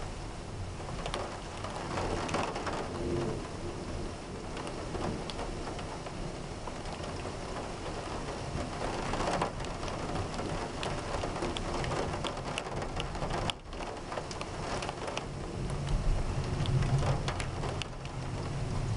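Steady heavy rain falling during a thunderstorm, with many individual drops ticking close by. A low rumble of thunder swells near the end.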